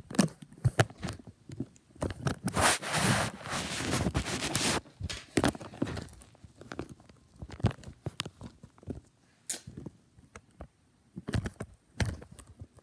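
Handling noise: sharp clicks and knocks of Lego plastic and a phone being moved, with a few seconds of rustling starting about two seconds in.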